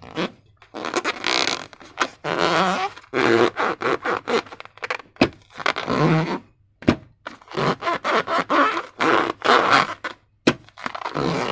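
Slime and rubber balloons being squeezed and worked by hand: a quick run of short wet squelches, rubbery squeaks and scrapes, each lasting a second or less.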